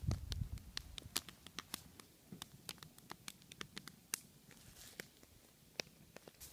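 Wood campfire built as a log-cabin 'well' crackling, with irregular sharp pops several times a second, and a short low rumble right at the start.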